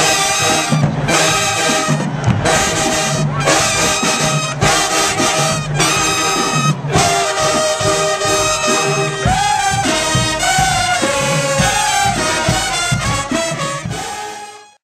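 Brass band music, with trumpets and trombones playing held chords and a melody, fading out near the end.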